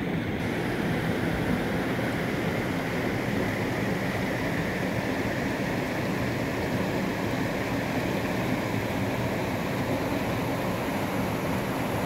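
Stream water rushing and splashing steadily over rocks.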